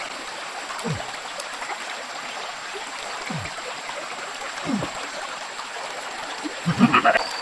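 Steady rush of running water, with a few short low sounds that drop in pitch and a louder burst near the end.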